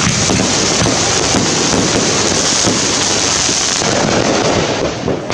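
Rooster Color 66-shot 2-inch firework cake firing, its shots and star bursts overlapping into a loud, continuous dense crackle that thins slightly near the end.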